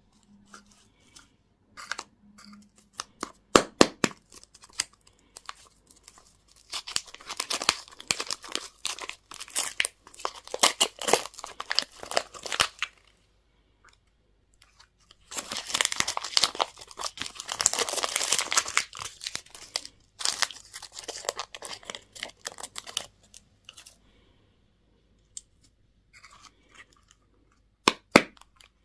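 Candy and toy wrappers being torn open and crinkled by hand, in two long crackling stretches with short pauses, and sharp cracks about four seconds in and again near the end.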